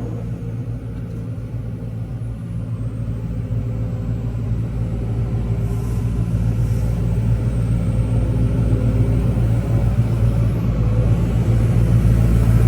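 Engine of heavy construction machinery running steadily with a deep rumble, slowly growing louder.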